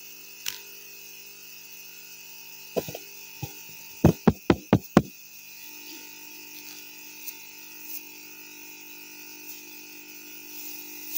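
Microphone handled and tapped through a PA system before speaking: a few light knocks, then five quick, loud thumps about five a second, over a steady hum from the sound system.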